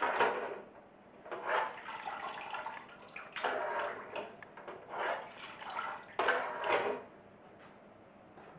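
Cleaning liquid sloshing and splashing in a deep-fat-fryer tank used as a parts washer as the wire-mesh basket is dipped up and down, about five swishes, stopping about seven seconds in.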